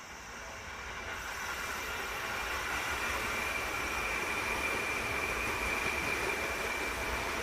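Electric commuter train passing at a level crossing: a rumble and rush of wheels on rail that swells over the first two seconds and then holds, with a steady high whine through the middle.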